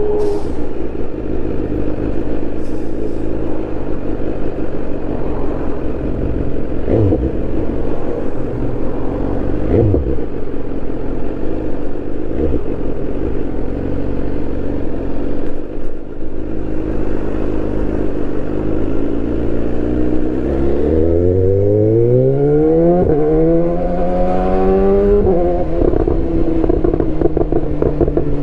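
2018 BMW S1000R's inline-four engine running steadily with a few short surges. Then the revs climb for about five seconds, with a brief dip midway, before dropping back to a steady note.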